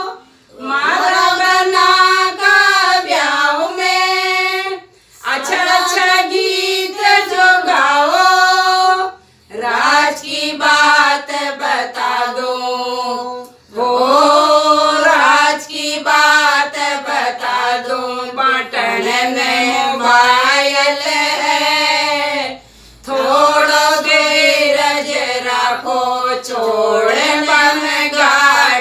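Group of women singing a Hindi banna-banni wedding folk song without accompaniment, in long phrases with short pauses between them.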